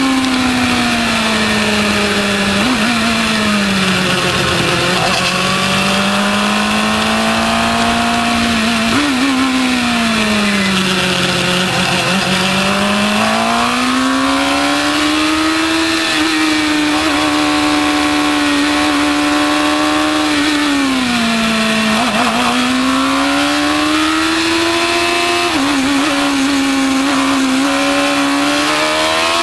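Formula 1000 race car's 1000 cc motorcycle-derived engine at racing speed, heard onboard: the revs drop three times under braking and downshifts and climb again as the car accelerates out of each corner.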